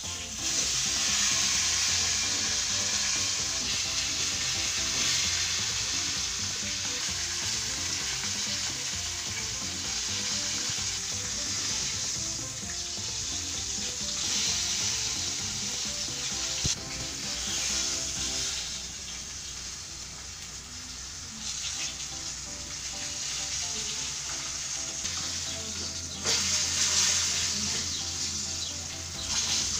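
Floured mojarra fish frying in hot oil in a frying pan: a steady sizzle that eases off in the middle and grows louder again near the end, with one brief click partway through.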